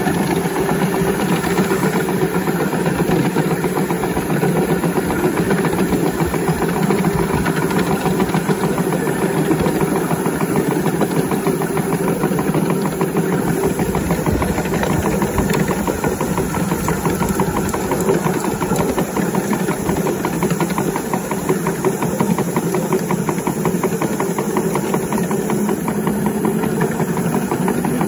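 5-inch gauge live-steam model of an LNER B1 locomotive running, a fast even chuffing from its exhaust mixed with the rumble of wheels on the rails, heard close up from the driving position behind the cab.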